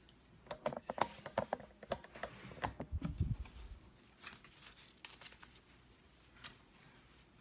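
Rustling and light clicking as a garment is handled and shown, busiest in the first three seconds, with a low thump about three seconds in. After that come a few scattered clicks.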